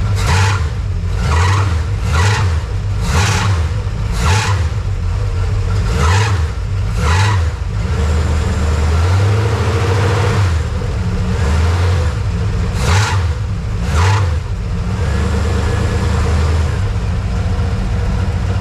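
Dodge D100 pickup's engine running, with short bursts of noise about once a second: a run of about seven in the first eight seconds and two more later, then a steady run. This is a new noise whose cause the owner cannot find; it is not the power steering reservoir.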